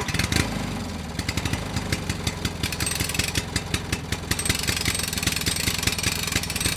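A vehicle engine idling with an even, rapid pulse.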